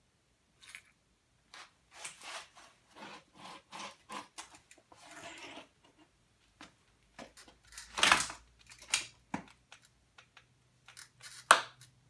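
Aluminium folding walker handled on a walker docking board: a string of short clicks, scuffs and rattles of its metal frame and wheels, with two louder knocks about eight and eleven and a half seconds in.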